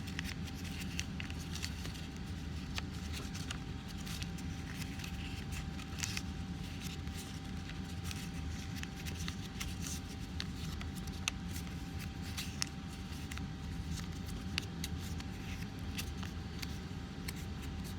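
Origami paper being accordion-folded along its creases, with scattered small crinkles and crackles. A steady low hum and a faint steady high tone run underneath.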